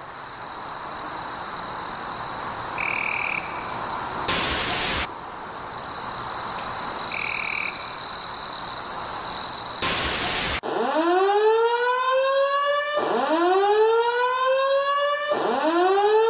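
Staged emergency alert broadcast audio. For about ten seconds it is static hiss under a steady high whine, with two short beeps and two louder bursts of noise. Then a whooping alert siren starts, a tone that rises in pitch and repeats about every two and a half seconds, three times.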